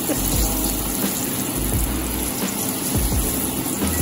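Hot oil bubbling and sizzling steadily around a battered strawberry deep-frying on a skewer in a small saucepan, over the steady rush of a range-hood fan.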